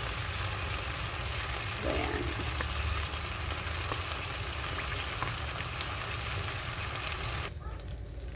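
Hot oil sizzling steadily in a wok around fried garlic, vinegar and hot sauce, an even hiss with faint crackles; the sizzle cuts off abruptly near the end.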